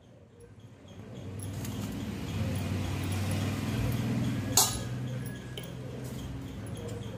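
A low droning hum swells over the first few seconds and then eases off a little, under the handling of raw mango pieces being packed into a plastic jar, with one sharp clink about four and a half seconds in.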